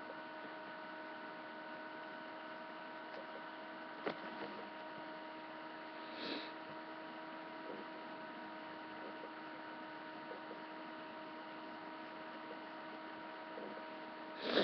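Steady electrical hum holding one pitch, with a faint click about four seconds in and a brief soft noise a couple of seconds later.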